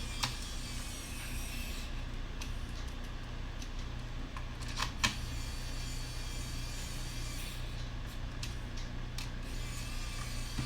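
A few sharp clicks of small screws and tools handled against a laptop's plastic chassis, the loudest about five seconds in, over a steady low hum.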